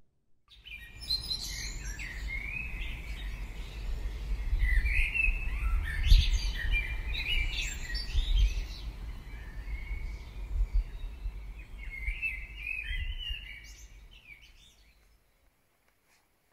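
Small songbirds twittering rapidly, many short high chirps over a low rumble of outdoor background noise; the chirping fades out near the end.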